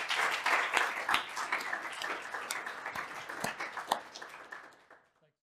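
Audience applauding at the end of a talk: a steady patter of many hands clapping that thins out and stops a little after five seconds in.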